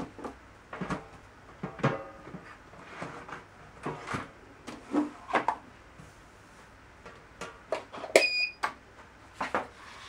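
Irregular clicks and knocks from a hand handling a metal escape-room button-panel prop, with a short high electronic beep about eight seconds in.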